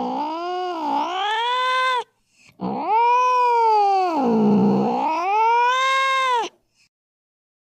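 Domestic cat caterwauling angrily in long, drawn-out yowls. One yowl ends about two seconds in, and a second, longer one dips low in pitch in the middle and rises again before cutting off about a second before the end.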